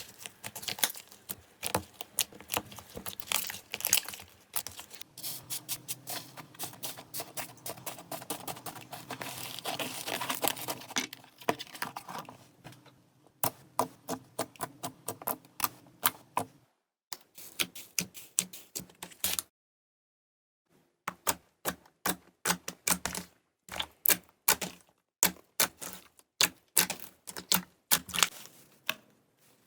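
Slime being pressed and worked by hand, giving rapid crackling and clicking like fast typing. There is a short silence about two-thirds of the way through.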